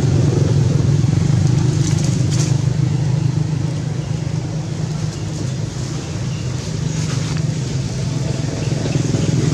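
Steady low engine drone, with a brief higher rustle about two seconds in.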